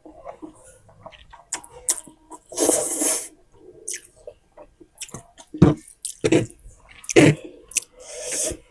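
Close-miked eating of spicy instant noodles: wet slurps and chewing, with a long slurp about three seconds in, several loud wet smacks in the second half, and another slurp near the end.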